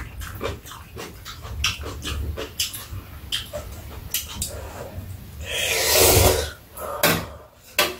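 Ramen noodles being slurped and chewed from bowls, with many small wet clicks and smacks, and one long, loud slurp about five and a half seconds in.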